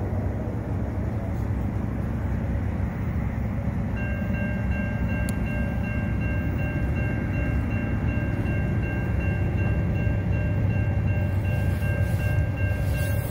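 Approaching Norfolk Southern freight train's diesel locomotives rumbling, slowly growing louder. From about four seconds in, a steady high-pitched ringing tone sounds over the rumble.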